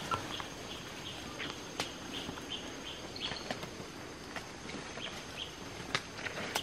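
Rainforest ambience: small birds chirping over and over, with a thin steady high whine and a few sharp snaps, the loudest about two seconds in and near the end.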